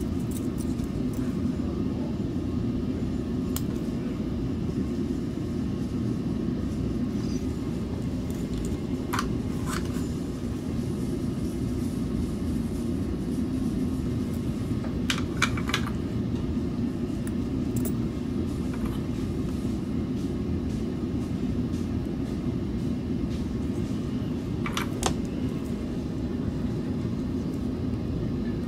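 A steady low mechanical rumble from a machine running on the bench, with a few small sharp clicks as parts and tools are handled: two about a third of the way in, a short cluster midway, and one more near the end.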